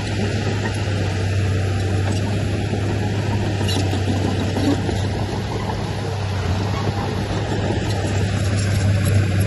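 Diesel engine of heavy earthmoving machinery running steadily, with a strong low hum. There are a few faint clicks about four seconds in.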